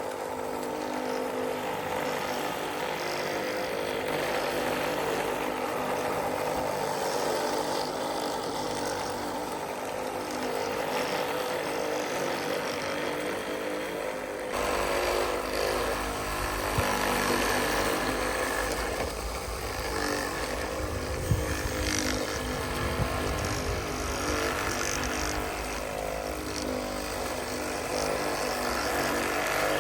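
Radio-controlled model construction vehicles running: a steady whine of small electric motors and gears. About halfway through the sound changes suddenly and a deeper rumble joins in.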